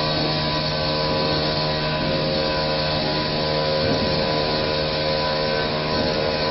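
CNC bridge saw running steadily as it machines a shower base: an even motor hum with several held tones over a hiss, at a constant level.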